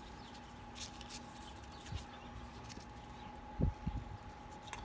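Faint handling of baseball cards: soft rustles and ticks, with a short low thump about three and a half seconds in, over a steady faint hum.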